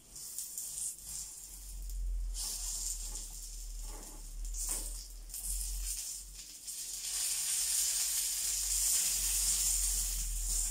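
Oil sizzling in a nonstick frying pan under meat-stuffed hawawshi loaves as a spatula presses them, the sizzle growing louder about two-thirds of the way through. A low steady hum runs underneath.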